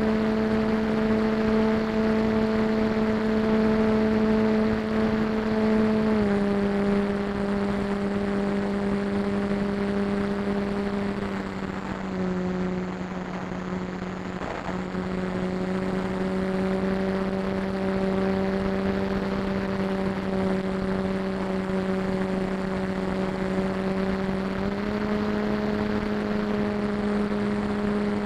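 A propeller aircraft's engine and prop drone steadily, heard from a camera on board with wind noise behind. The pitch steps down about six seconds in, dips a little lower around the middle, and steps back up near the end as the power is changed.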